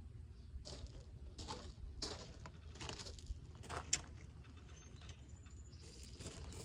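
Soil in a raised garden bed being dug and scraped: faint, irregular scrapes and rustles about once a second over a low steady rumble.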